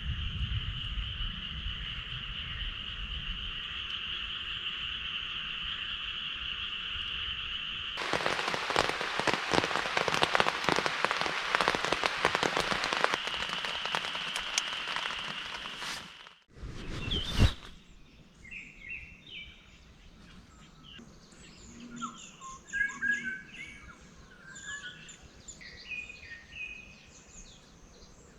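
A steady, high-pitched trilling chorus, then several seconds of dense crackling noise with a loud burst near the middle, then birds chirping on and off.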